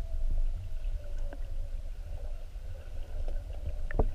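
Muffled underwater sound from a camera in a waterproof housing: a low, uneven rumble of moving water with a faint steady hum and scattered small clicks, one sharper click near the end.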